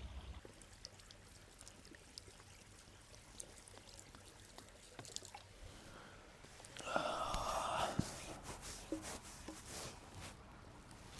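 Liquid being poured for about a second, amid scattered light clicks and knocks.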